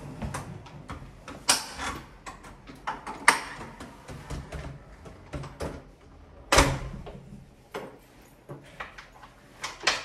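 A series of scattered knocks and clunks, the three loudest about one and a half, three and six and a half seconds in.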